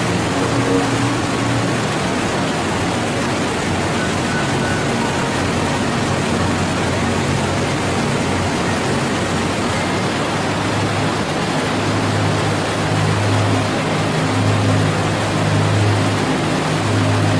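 Iguazú Falls: the steady, dense rush of a large waterfall's falling water.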